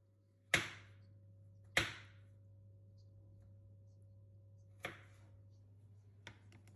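Sharp knocks and clicks of kitchenware being handled: two loud knocks about a second apart, a softer one later, and a few light clicks near the end, over a low steady hum.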